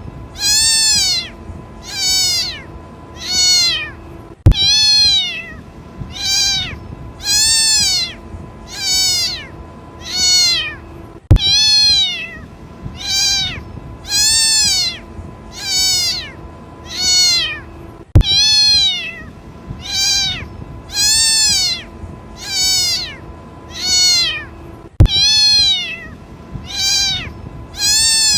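A kitten meowing over and over, crying for its mother: high-pitched calls about one a second, each rising then falling in pitch. A sharp click cuts in roughly every seven seconds.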